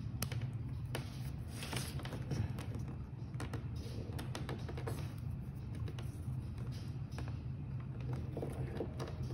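Small irregular clicks and scratches of a multimeter probe tip prying at a small plastic stepper-motor cable connector, trying to release its crimped pins, over a steady low hum.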